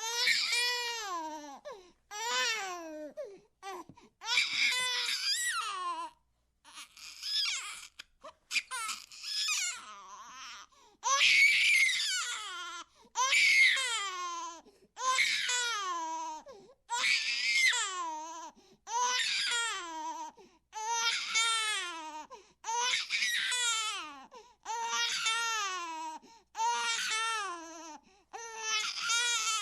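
A baby crying: a long string of wails, each starting high and falling in pitch, coming about once every two seconds, with harsher, louder cries near the middle.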